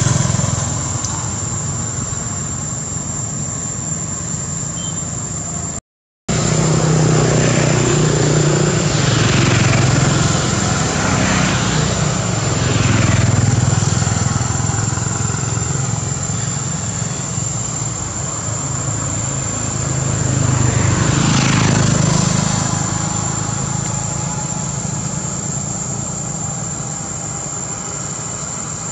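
Road traffic going past: several vehicles swell up and fade away in turn, over a steady high-pitched whine. The sound cuts out completely for a moment about six seconds in.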